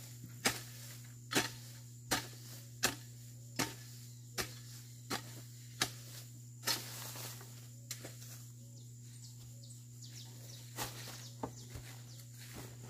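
Hand hoe chopping into weeds and soil in a steady rhythm, about one strike every three-quarters of a second, with the strikes becoming fewer and fainter in the second half.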